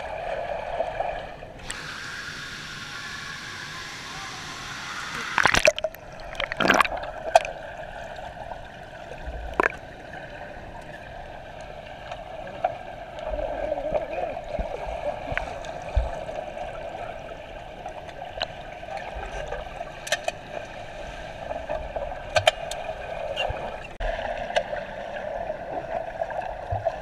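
Muffled underwater sound in a swimming pool, heard through a GoPro Hero3+ camera's waterproof housing: a steady dull hum with gurgling and sloshing water. A stretch of hiss comes in about two seconds in and stops abruptly at around five and a half seconds, and several sharp clicks and knocks come through at irregular moments.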